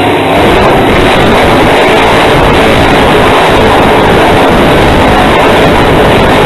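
Grave Digger monster truck's supercharged big-block V8 running at full throttle, a very loud, steady engine noise that starts just before and drops away just after.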